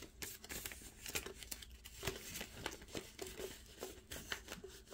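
Plastic zip pouch in a ring binder crinkling and rustling as hands open it and slide paper bills inside, with many small irregular clicks and rustles.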